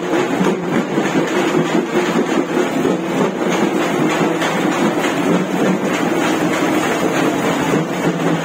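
A steady, loud engine running at a constant pace, with a dense rumble and no clear beat.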